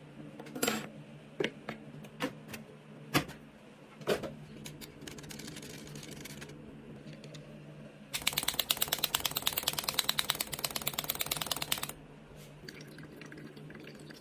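Scattered sharp clicks and knocks, then a fast, even run of mechanical clicking lasting about four seconds, starting about eight seconds in.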